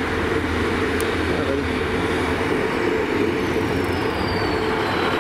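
Transport for Wales Class 150 diesel multiple unit running into the platform and passing close by, its underfloor diesel engines droning steadily with a constant mid-pitched hum. A faint high whine falls slowly in pitch throughout, and there is a single sharp click about a second in.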